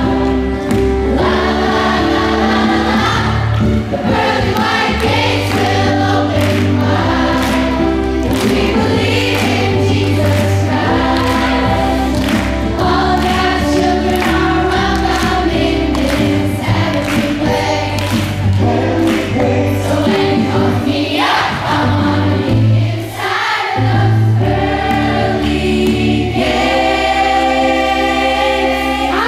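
Gospel song sung by a group of voices over a band accompaniment with a steady pulsing bass line.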